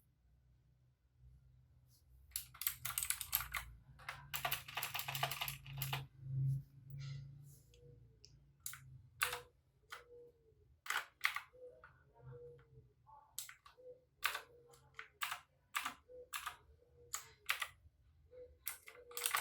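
Key presses on an AULA F2066 II budget mechanical keyboard: a quick flurry of typing, then single keys pressed one at a time with short pauses between them.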